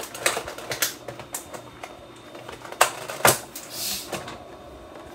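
Sharp plastic clicks and knocks at irregular intervals, with a short crinkling rustle about four seconds in: a plastic clamshell container of spinach being handled and opened.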